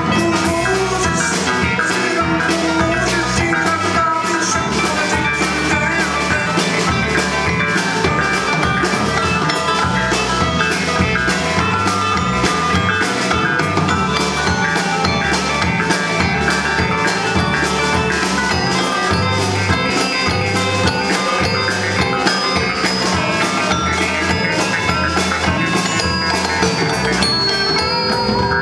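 Live indie rock band playing an instrumental passage: drum kit keeping a steady beat under electric guitar, bass and keyboards.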